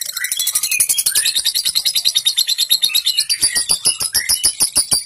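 Lovebird giving its long rapid chattering trill (ngekek), a fast even run of harsh, high notes about seven a second that grows stronger in the last couple of seconds.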